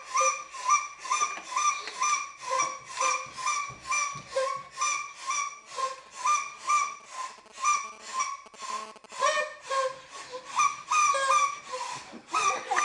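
Paper party blowers tooted in quick short puffs, about three a second, each a short buzzy horn note. Near the end a second blower joins in over the first.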